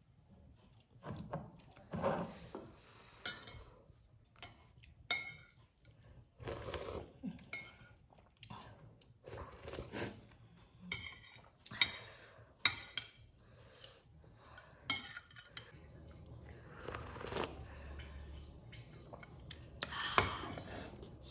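Eating instant noodles in broth: a metal fork and spoon clink and scrape against a ceramic plate now and then, between slurping and chewing sounds.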